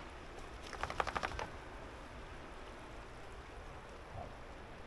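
Steady hiss of a full, fast-flowing river, with a brief rapid rattle of about ten clicks about a second in.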